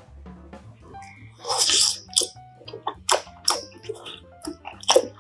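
A person eating mushroom and dumpling hotpot close to the microphone: a loud half-second noisy sound about a second and a half in, then wet chewing sounds repeating two to three times a second. Soft background music runs underneath.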